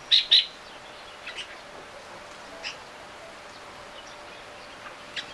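Bulbuls calling in a cherry tree: two loud short chirps right at the start, then a few fainter, spaced-out chirps over a soft steady outdoor hiss.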